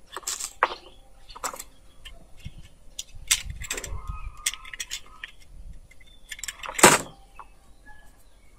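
Small clicks and scrapes as a utility knife cuts into a thin fig scion stem, with a sharper click about seven seconds in.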